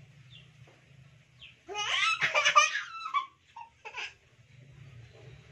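Toddler laughing, a burst of high-pitched giggles about two seconds in lasting a second and a half, with a couple of short giggles after.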